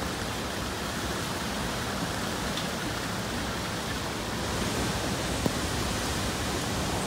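Hurricane wind blowing steadily, with rain: an even rushing noise with no let-up.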